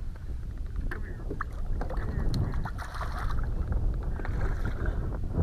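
Wind rushing over the microphone and water moving against a bass boat's hull while a hooked bass is fought close to the boat, with a few sharp clicks and a short splashy hiss near the middle.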